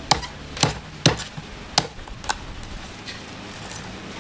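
A knife chopping on a cutting board: about five sharp, irregularly spaced strokes in the first two and a half seconds, then only quieter background.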